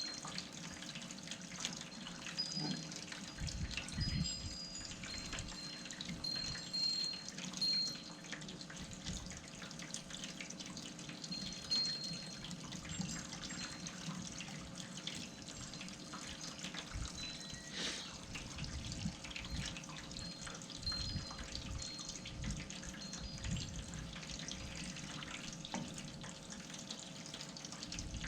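Water heating in a pot, a dense faint crackle of small bubbles with occasional louder pops as it nears the boil.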